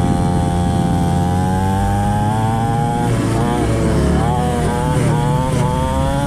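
Small two-stroke engine of a cheap mini dirt bike running under way. Its pitch climbs slowly at first, then rises and falls several times from about halfway through as the throttle is opened and eased.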